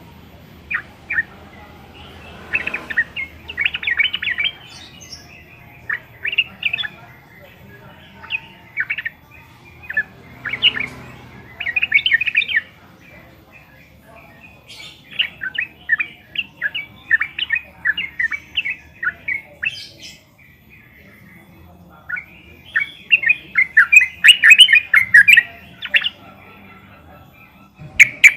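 Yellow-vented bulbul calling in runs of quick, high chirps, phrase after phrase with short pauses between them; the densest, loudest run comes about three-quarters of the way through.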